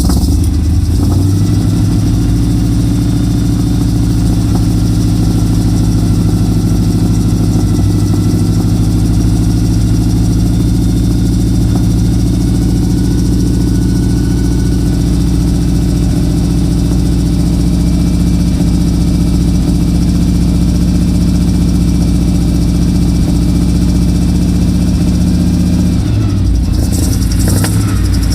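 Chevrolet K5 Blazer's 454 big-block V8 running steadily, the newly replaced engine fan turning with it. It runs evenly with nothing weird in the sound, which the owner takes as the fan being fitted right. A few short knocks come near the end.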